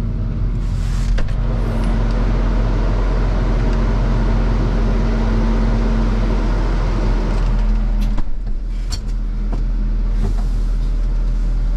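Fendt tractor's diesel engine running steadily, heard from inside the cab. Several sharp clicks come in the last few seconds.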